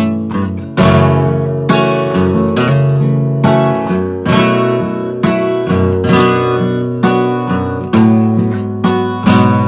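Acoustic guitar strummed in a slow ballad rhythm, about one chord a second, each chord ringing out and fading before the next: an instrumental interlude with no singing.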